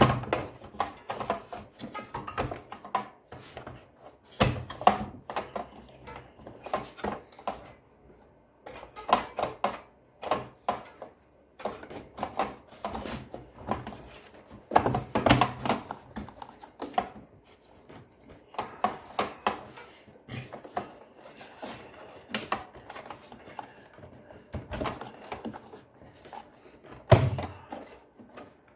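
Irregular knocks, clicks and clatter of hard parts and tools being handled during a vacuum cleaner repair, with no motor running.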